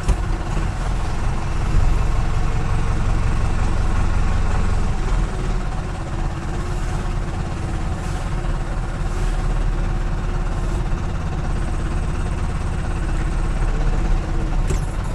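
Four-cylinder diesel engine of an IHC 745 tractor running steadily, heard from inside the cab while the tractor is manoeuvred slowly.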